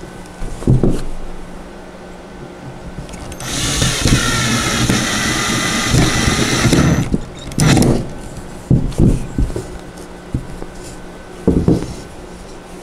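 Cordless drill driving a wood screw, a steady motor whine lasting about three and a half seconds, starting about three seconds in, as an armrest is screwed to a wooden seat. Afterwards come a few short knocks.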